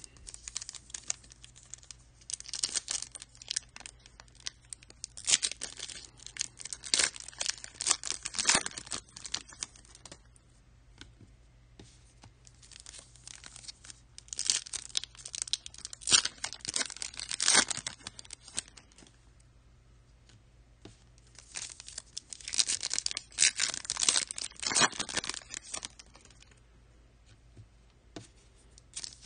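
Foil wrappers of trading-card packs being torn open and crinkled. The crackling comes in four bouts, with quieter handling of the cards in between.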